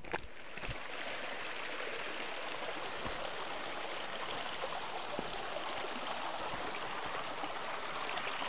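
Shallow stream running over rocks and stones: a steady babble of water that starts about half a second in.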